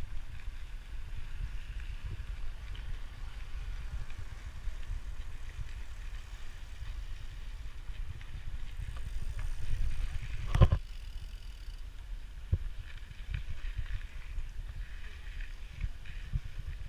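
Mountain bike rolling along a rough paved road, heard as a steady low rumble of wind buffeting and road vibration on the camera's microphone. A sharp knock comes about ten and a half seconds in, and a smaller one a couple of seconds later.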